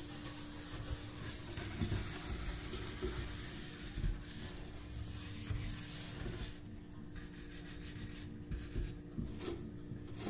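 Metal scouring pad scrubbing a wet stainless steel sink: steady scratchy rubbing that breaks into shorter separate strokes with pauses about two-thirds of the way through.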